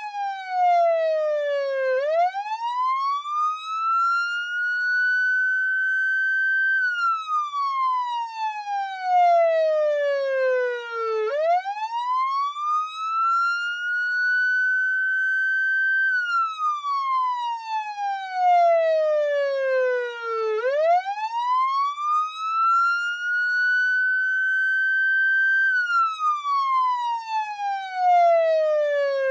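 Police siren on a slow wail: the pitch climbs for about four seconds, levels off briefly at the top, then sinks for about four seconds, and the cycle repeats roughly every nine seconds. A single clean tone with nothing else heard beneath it.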